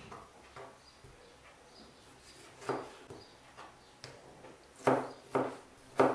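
Kitchen knife cutting a tomato on a cutting board, the blade knocking the board with each cut: a few scattered cuts at first, then steady cuts about two a second near the end.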